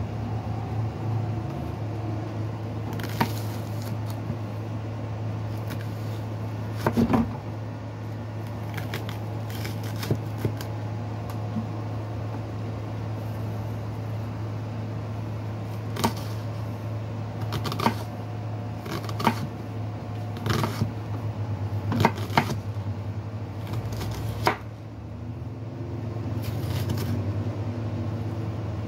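Chef's knife cutting through a red onion and striking a wooden cutting board: sharp knocks at irregular intervals, coming more often in the second half, over a steady low hum.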